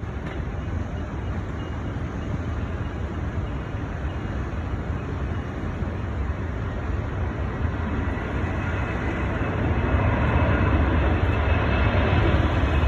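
Jet airliner engine noise, a steady rumble that grows gradually louder over the seconds, with a faint high whine coming in near the end.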